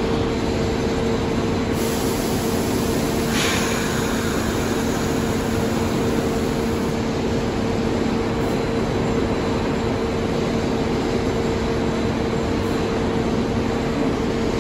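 R62A subway train standing at the platform with its doors open, giving off a steady hum on two held pitches over a low rumble. A brief hiss comes about three seconds in.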